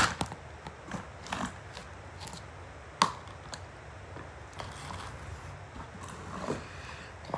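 A large lump of mixed slime stretched and squeezed by hand, giving irregular sticky clicks and pops, the sharpest about three seconds in.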